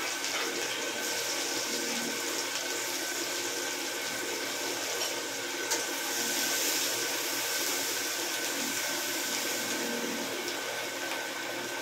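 Chopped onions sizzling steadily in hot oil in a kadhai as they are stirred with a spatula, with a couple of sharp clicks, one at the start and one about six seconds in.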